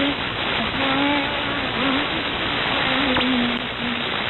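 Sri Lanka Broadcasting Corporation shortwave AM broadcast on 11905 kHz, picked up on an SDRplay receiver: loud, steady static hiss with a faint voice underneath. The audio is thin and muffled, as from a narrow AM filter.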